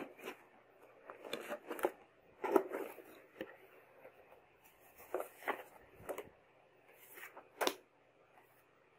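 Cardboard box of a computer power supply being opened and handled: irregular knocks, scrapes and rustles of cardboard and paper with short quiet gaps between them.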